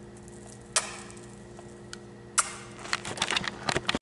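A sharp click about three quarters of a second in and another about two and a half seconds in, then a quick run of clicks and taps in the last second. A steady low hum runs underneath.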